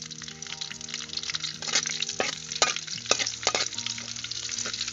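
Chopped aromatics and sliced red chilies sizzling in hot oil in a metal wok, with a steady crackle. A steel spatula scrapes and clacks against the wok about once or twice a second as they are stirred.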